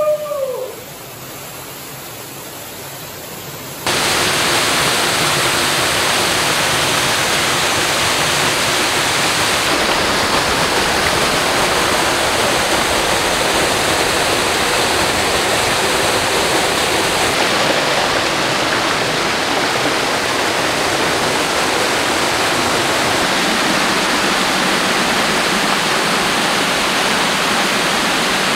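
Waterfall pouring into a rocky pool: a loud, steady rush of falling water that cuts in suddenly about four seconds in, after a short cry and a quieter stretch of water sound at the start.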